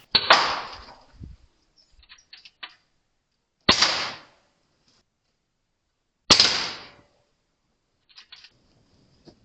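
Three shots from a Katran compact .22 caliber air rifle, each a sharp crack with a short fading tail, about three seconds apart. Faint lighter clicks come between the shots.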